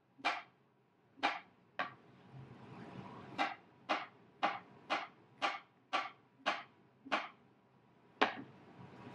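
Chef's knife slicing brown button mushrooms on a cutting board: a steady run of sharp knife taps against the board, about two a second, a dozen in all.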